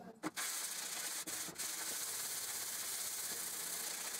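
Steel cutting iron of a Stanley No. 4 bench plane scrubbed back and forth on 80-grit abrasive paper to take off surface rust: a steady, scratchy rasp. A short knock comes just before the scrubbing starts.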